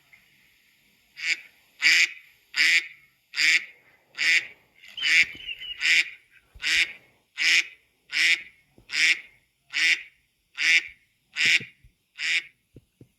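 Domestic waterfowl calling: a long run of about fifteen loud, evenly spaced honking calls, a little under one a second, starting a little over a second in and stopping near the end.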